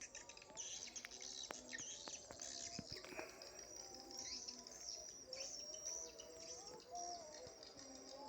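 Swiftlets twittering: many rapid high chirps overlapping, with lower wavering whistled notes underneath.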